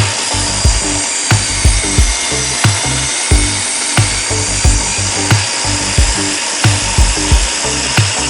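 Table saw running and ripping through a live-edge wood board, a steady whine and rasp of the blade in the wood. Over it plays background music with a steady, regular beat of low thumps, which are the loudest sounds.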